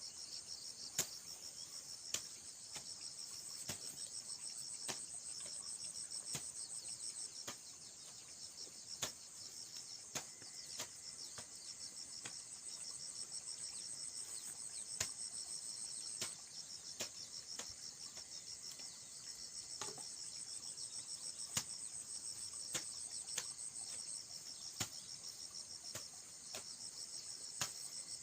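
Crickets chirping in a steady, high, finely pulsing chorus, with sharp knocks about once a second.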